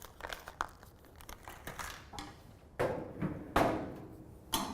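Metal barbecue parts being handled during assembly: light clicks and rustling, then three louder knocks with a short metallic ring in the second half.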